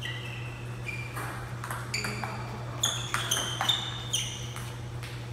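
Table tennis rally: the ball clicking sharply off the paddles and table in a quick, uneven series of ringing pocks, most crowded and loudest in the middle.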